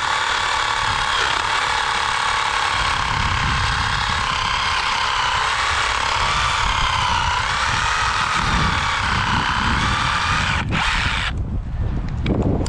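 Cordless reciprocating saw with a Diablo pruning blade cutting through a dead branch: a steady motor whine whose pitch wavers as the blade loads up, stopping abruptly near the end.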